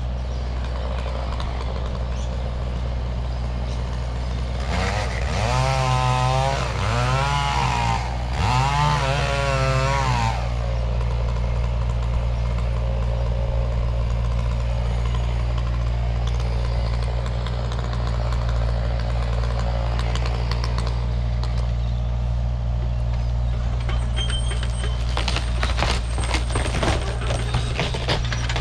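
Excavator's diesel engine running steadily. About five seconds in, a whine wavers up and down for around five seconds, and near the end there is a run of knocks and clatter.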